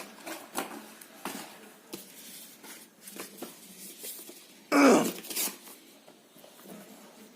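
Hands handling a smartphone's cardboard box and packaging: scattered light clicks and rustles, with one louder rustle about five seconds in.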